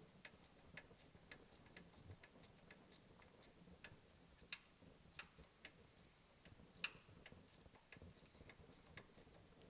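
Faint, even ticking, about two sharp clicks a second, over near silence.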